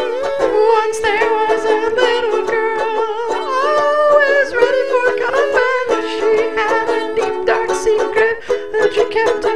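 Music: a song with a voice singing the melody over a plucked-string accompaniment.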